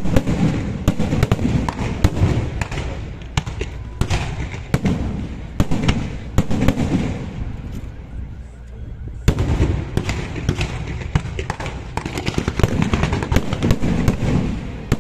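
Aerial fireworks bursting in a rapid string of bangs and crackles, easing off briefly about eight seconds in before a loud new volley starts suddenly.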